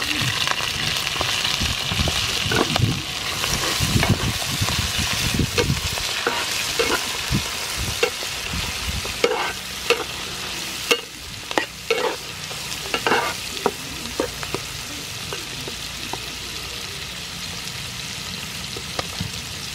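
Shucked clam meat sizzling in hot soybean oil with chopped garlic in a non-stick frying pan. The sizzle starts as the clams go into the oil. A metal spatula scrapes and clicks against the pan while stirring for roughly the first thirteen seconds, then a steady sizzle carries on.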